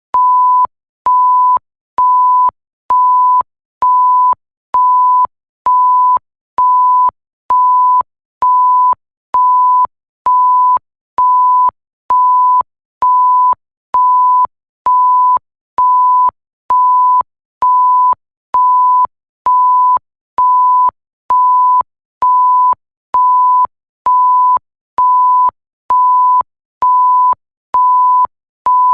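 Electronic bleep: a single pure, steady tone repeating evenly, a little more than once a second. Each beep lasts about half a second, separated by short gaps, with a faint click as it switches on and off.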